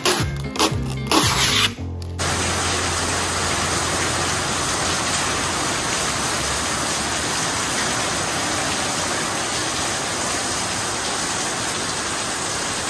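A motor-driven machine running steadily, an even hiss with a low hum underneath, starting about two seconds in after a short stretch of music and cutting off abruptly at the end.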